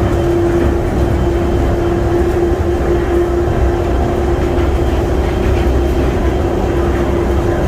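Interior of the DFW Skylink automated people-mover train running along its guideway: a steady rumble with a constant whine held on one note.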